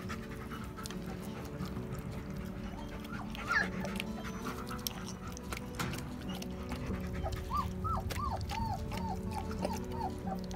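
German Shepherd eating a soft mash of kibble and canned food from a metal pan, with scattered wet chewing and mouth clicks, over background music. In the last few seconds a run of short squeaks rises and falls, several a second.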